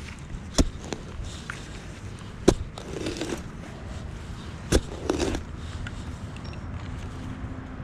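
A digging tool chopping into soil in a deep hole: three sharp strikes, the second and third each followed by a brief scrape of dirt.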